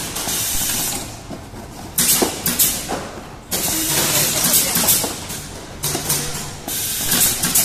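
Home-built pneumatic label applicator cycling: several bursts of compressed-air hiss a second or two apart as the press works, with clicks and a few short low hums from the machine.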